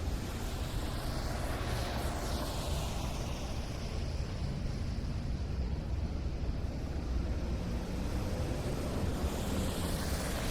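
City street traffic over snow-covered roads: a steady low rumble of engines, with a car passing close about a second in and another near the end, its tyre hiss rising and falling.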